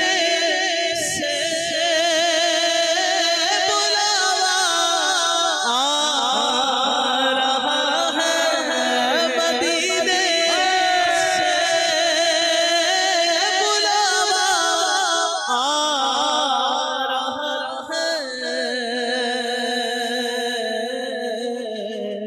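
A naat sung by male voices through microphones, without instruments: long, drawn-out notes that waver heavily in pitch, several voices sounding at once, with no clear words.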